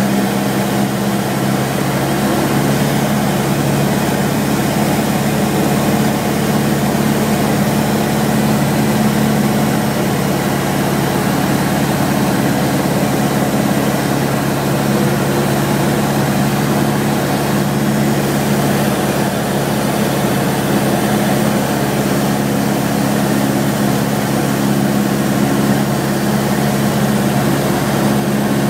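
Robin DR400's 108 hp four-cylinder Lycoming engine and propeller running steadily, heard from inside the cabin as a constant low drone.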